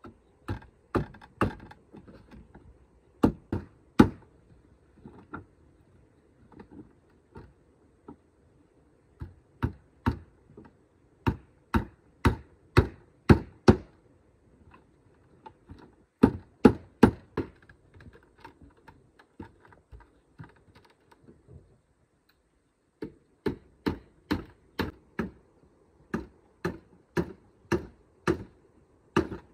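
Hammer blows on a wooden chair frame: runs of sharp knocks, about two a second, broken by short pauses, the longest a little over two-thirds of the way through.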